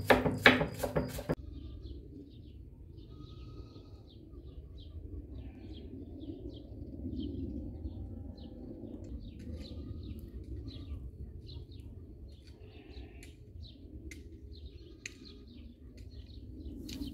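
Small birds chirping on and off, short scattered calls over a low steady rumble, after a few sharp knocks in the first second or so.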